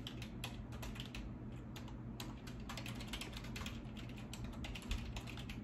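Typing on a computer keyboard: a run of irregular keystrokes, with a low steady hum underneath.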